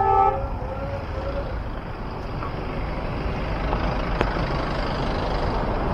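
Road traffic: a motor vehicle's engine and tyre noise, growing slowly louder as it approaches.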